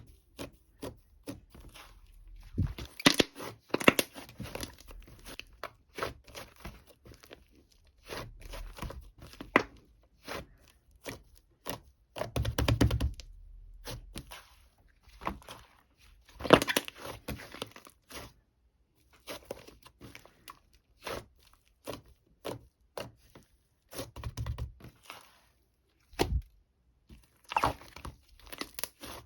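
Irregular close-up handling noises: crinkling, tearing and scraping with scattered taps and clicks, louder clusters now and then, and one dull thump near the end.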